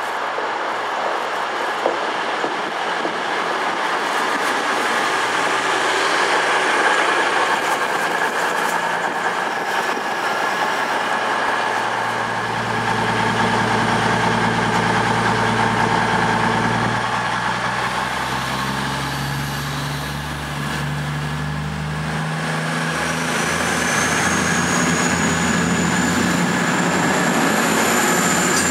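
Diesel train running on the line, a steady rumble of wheels on rail, with an engine's hum coming in about halfway and changing pitch a couple of times. A thin high wheel squeal rises near the end.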